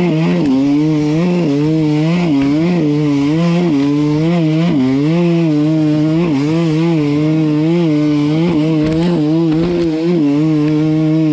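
Enduro dirt bike engine running at mid revs with short throttle blips about twice a second, its pitch rising and falling with each blip as the bike is ridden over trail terrain.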